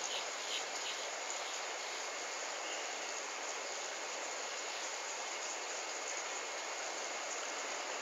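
Steady, even hiss of outdoor background noise, with a few faint ticks near the start.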